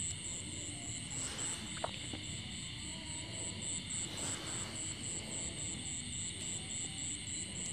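Night insects chirping, led by a cricket's even, rapid high pulsing over a steady higher insect trill. Two soft rustles come about a second in and about four seconds in.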